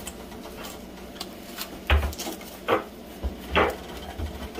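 Several short, light knocks and clatters of small items from the kit being handled and set down, the strongest about two, two and a half, and three and a half seconds in.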